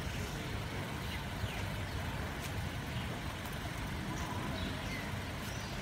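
A car's rear door being opened, its latch clicking once about a second and a half in, over a steady low outdoor rumble with a few faint chirps.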